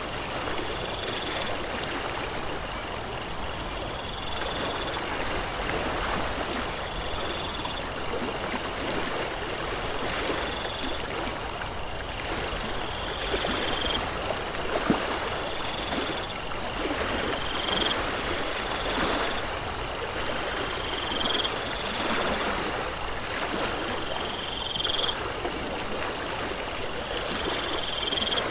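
Stream ambience: steady running water with high chirps repeating about every two seconds and stretches of quick high trills lasting a few seconds each.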